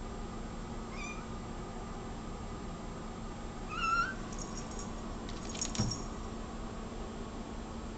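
Tortoiseshell-and-white cat meowing at a bug on the wall she can't reach: a faint short meow about a second in, then a louder, rising meow about four seconds in. A few clicks and a soft knock follow near six seconds.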